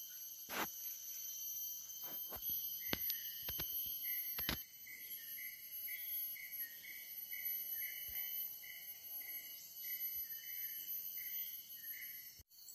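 Tropical forest insects: several steady high-pitched insect drones, joined from about three seconds in by a short chirp repeating about three times a second. A few sharp clicks sound in the first half.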